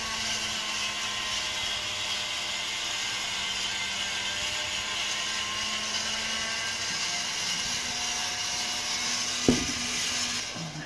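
Cajun Bandit rotisserie's electric motor running steadily, turning a spit-mounted beef rib roast to check its balance. A single sharp knock comes about nine and a half seconds in, and the sound cuts off just before the end.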